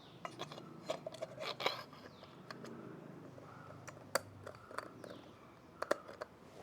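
Hand work on tools and parts: scattered sharp clicks and knocks mixed with short scrapes, the loudest clicks about four seconds in and near the end.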